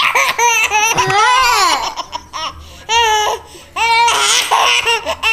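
Baby laughing in several high-pitched bursts, with one long squeal about a second in that rises and then falls.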